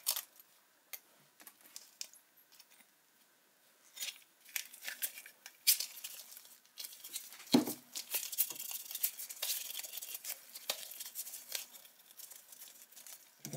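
Quiet handling sounds of gloved hands rolling plumber's putty and pressing it around the flange of a stainless steel basket strainer: scattered light clicks and rustles, with one louder knock about seven and a half seconds in.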